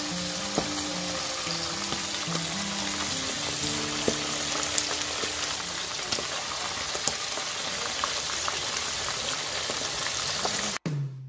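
Beodeulchi (Chinese minnows) sizzling as they fry in hot oil in a frying pan: a steady hiss with scattered sharp pops. It cuts off suddenly near the end.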